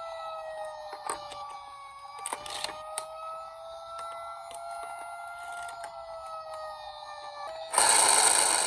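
Toy emergency vehicle's electronic siren sounding one long tone that slowly sags and rises in pitch, with small clicks and taps throughout. Near the end the tone breaks off and a sudden loud hiss of noise cuts in.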